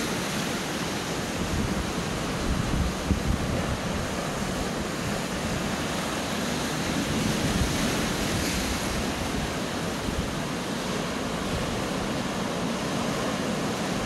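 Sea surf breaking and washing over coastal rocks, a steady rushing, with wind buffeting the phone's microphone as an uneven low rumble.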